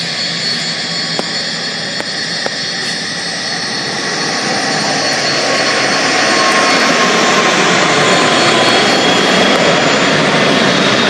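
An Emirates Airbus A380-800's four jet engines at takeoff power: a broad rumble that grows louder over the first seven seconds or so, then holds, with a thin steady whine above it.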